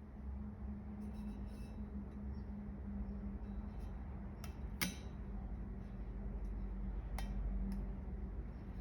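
Tape and knife work on a metal wheel rim during masking: a few sharp light clicks, two close together about halfway and one more later, over a steady low hum.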